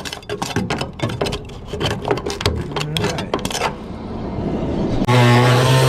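Hand scraping on sheet metal, rapid back-and-forth strokes, about four or five a second, working old seam sealer off a rusty body seam. About five seconds in, a loud steady hum starts suddenly.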